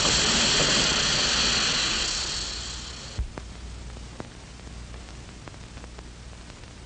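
A loud, even hiss that fades over about three seconds and cuts off with a thump, followed by a few faint clicks.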